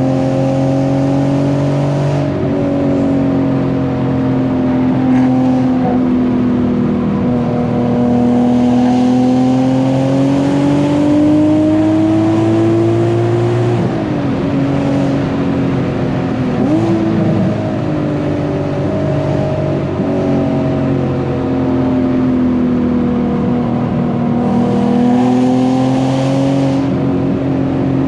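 Infiniti G37 sedan's VQ-series V6 engine running while driving, its pitch slowly rising and falling, with two quick dips in pitch a little past halfway.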